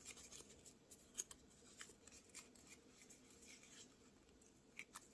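Faint rustling and small creasing ticks of pearl crinkle origami paper being folded in half by hand.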